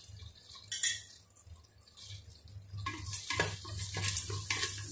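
Whole spices frying in melted butter in a stainless steel pressure cooker: a sharp metal clink about a second in, then from about three seconds a crackling sizzle with small clicks as the spices are stirred in the pot.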